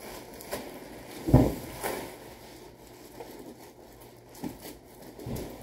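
Bubble wrap and a cardboard box being handled as a bubble-wrapped car spoiler is lifted out: scattered rustles and knocks, with one loud thump about a second and a half in.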